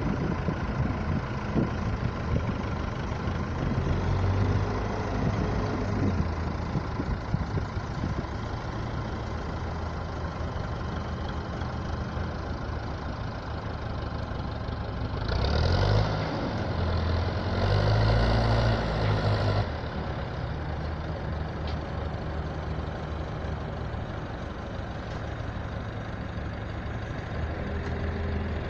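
Heavy construction-machine engine running steadily, growing louder and harsher for a few seconds a little past halfway through.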